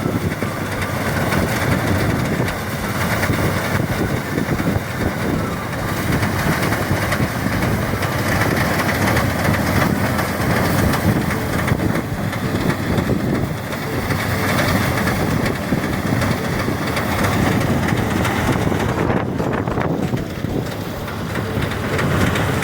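Motorized rice thresher running steadily, a loud, dense, even mechanical noise.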